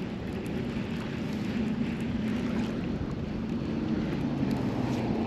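A boat motor running steadily, a low even hum, with wind noise on the microphone.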